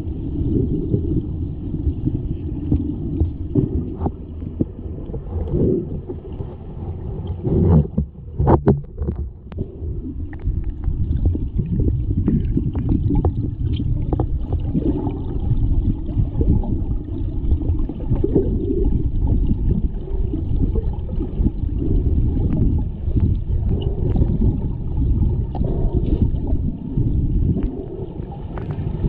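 Muffled underwater rumble and gurgle of pool water picked up by a camera in its underwater housing, with a short cluster of sharp knocks about eight seconds in.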